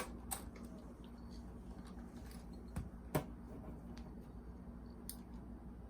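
Small sharp clicks and crackles of a strip of tape being cut or torn off and pressed into place, a few seconds apart over a low steady hum.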